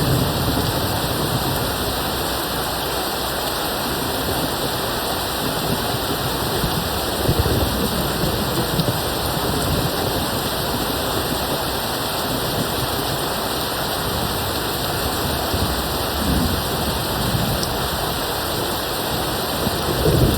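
Steady rain falling, with low rumbles of distant thunder swelling up now and then.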